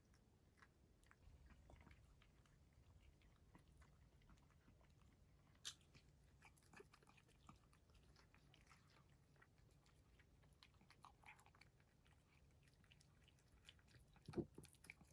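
British Shorthair cat chewing and biting its food, faint small crunches and clicks scattered through, with a single louder low thump near the end.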